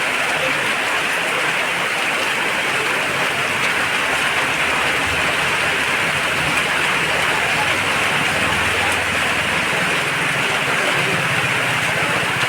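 Steady rain falling, a dense, even hiss that doesn't let up.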